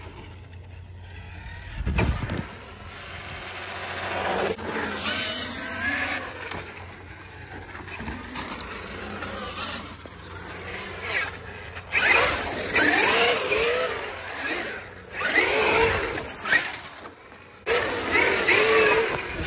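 Traxxas X-Maxx 8S electric RC monster truck's brushless motor and drivetrain whining, rising and falling in pitch with repeated throttle bursts, loudest in the second half. There is a low thud about two seconds in.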